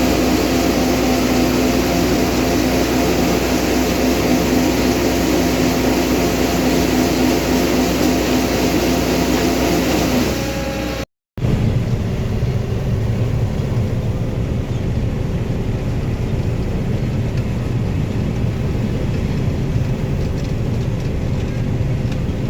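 Combine harvester running steadily during oat harvest. About halfway through the sound cuts out briefly and picks up again with a lower, deeper running tone, as from a second take of the machine.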